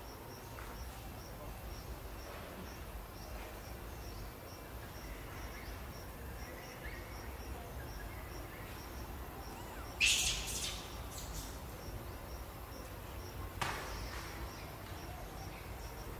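A baby macaque gives a short, shrill cry about ten seconds in, then a second, shorter cry a few seconds later. Under it, an insect chirps steadily about twice a second over a faint background hiss.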